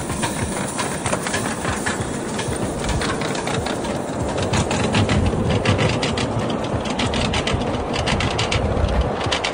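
A 7½-inch gauge live steam locomotive and its train of riding cars rolling away along the track: a low rumble with a quick run of sharp clicks, thickest from about three to eight seconds in.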